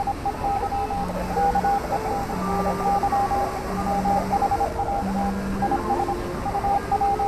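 Electronic beeps and tones over a steady hiss: runs of short, clipped high beeps, with a longer low tone sounding about every second and a quarter.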